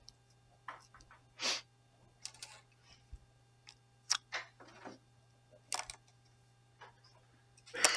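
Faint classroom noises during a pause in speech: scattered small clicks, rustles and a breath-like hiss over a steady low electrical hum, with a louder noise right at the end.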